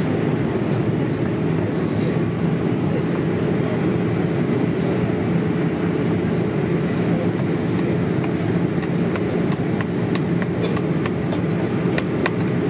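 Steady cabin roar of a Boeing 787-8 airliner in descent through cloud, heard from a window seat over the wing. From about two-thirds of the way through, a scattering of light clicks sounds over the roar.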